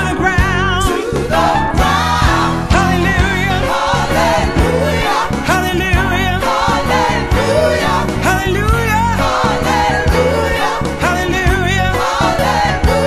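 Background music: a song with singing that wavers in vibrato over a steady bass and beat.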